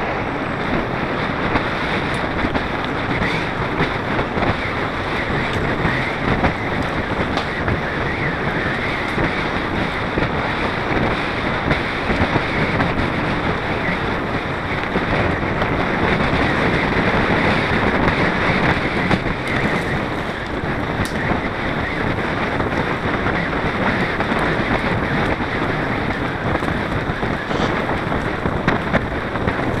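Steady rush of wind over the microphone of a camera riding on a mountain bike, mixed with the noise of tyres rolling over a dirt and sand trail.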